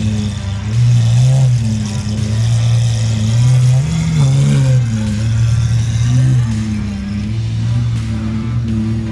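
Lamborghini Aventador SVJ's V12 engine running at low revs as the car rolls slowly away, its note swelling and dipping with light throttle and rising briefly about four seconds in.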